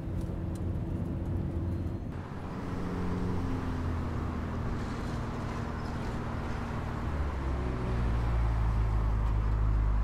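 Car engine and road noise as the car drives slowly and pulls up, a steady low rumble that grows louder near the end.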